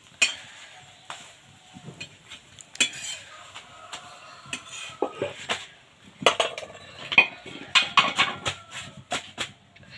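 Metal spatula scraping and tapping against an iron tawa as a cooked paratha is folded over: a run of irregular clinks and scrapes, busiest in the second half.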